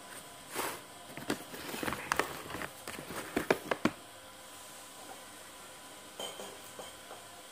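Close-up eating of spicy noodles: wet mouth noises and sharp clicks over the first four seconds, then it settles to faint room tone with one soft click late on.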